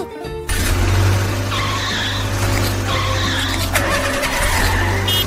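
Cartoon sound effects of a car engine running steadily, with three tyre-squeal skids, over faint background music.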